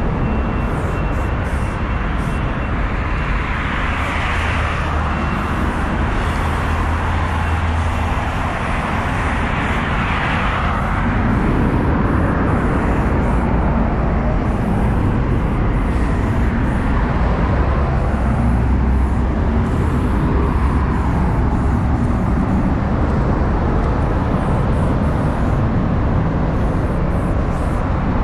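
Steady outdoor background noise, mostly a low rumble, with a hiss that swells twice in the first half.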